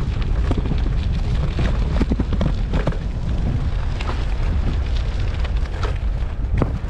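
Wind buffeting the microphone while riding an electric scooter, a steady low rumble, with frequent short knocks and rattles from the scooter jolting over rough pavement.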